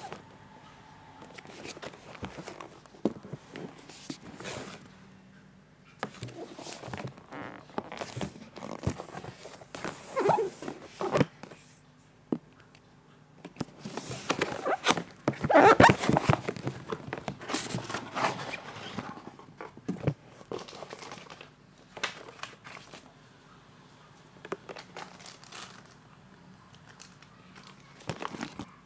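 Cardboard box being handled and opened by hand: irregular rustling, scraping and tapping of cardboard, with the longest and loudest stretch of crinkling about halfway through. Near the end, hands touch the bubble wrap and cables inside.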